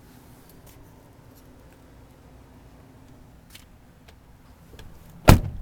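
Faint handling noise with a few light clicks, then a single loud thump about five seconds in, typical of a car door being opened or shut on the Chevrolet Suburban.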